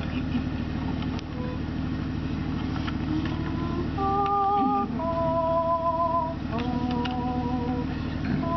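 Choir singing, entering about four seconds in with long held notes with vibrato in two- and three-part harmony. A steady low mechanical hum runs underneath.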